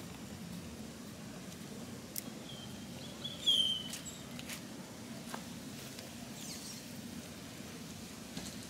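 Quiet outdoor ambience with a steady low hum and a few light clicks. A short bird call comes about three and a half seconds in and is the loudest sound.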